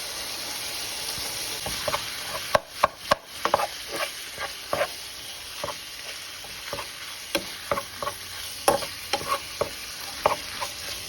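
Ground beef sizzling as it fries in a pan, with a steady hiss. From about two seconds in, a utensil stirs it, clicking and scraping against the pan at irregular intervals.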